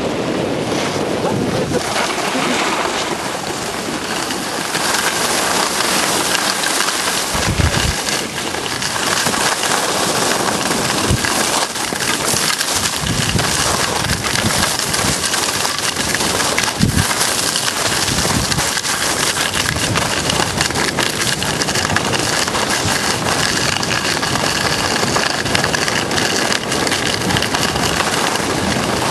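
Skis hissing and scraping over packed snow in a steady rush during a downhill run, with wind buffeting the microphone in occasional low thumps.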